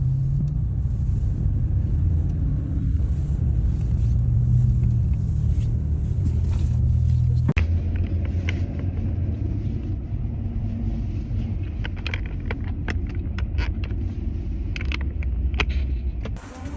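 Steady low road rumble inside a moving car. A run of short, sharp clicks comes in the second half.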